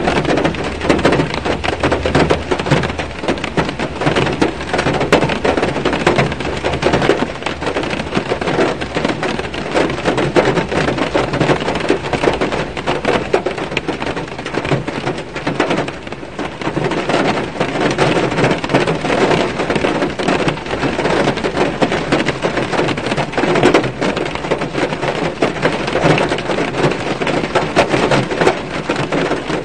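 Autumn rain falling on a car's roof and windows, heard from inside the car: a dense, steady patter of many small drop impacts.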